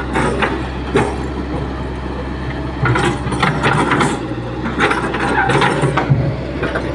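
Hitachi Zaxis 110 excavator's diesel engine running steadily under load, with irregular clattering and scraping as the bucket works loose soil, busiest from about three seconds in until near the end.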